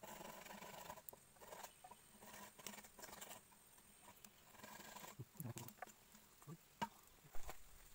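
Faint scraping and light clicks of a small kitchen knife peeling the skin off taro stems against a wooden chopping board, with one sharper knock near the end.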